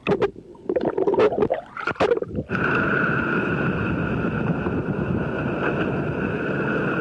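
Muffled underwater bubbling and crackling for about two and a half seconds, then a sudden switch to the steady drone of a boat at sea, with two constant tones over a rushing hiss.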